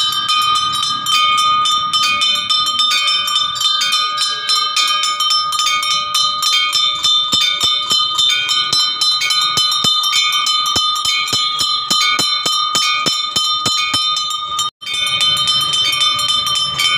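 Temple bells ringing rapidly and continuously during the pooja, with fast repeated strikes keeping several high ringing tones going. The sound breaks off for an instant near the end.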